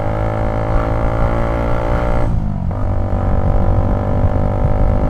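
Motorcycle engine running at a steady pitch while riding, its revs dropping briefly about halfway through before settling again.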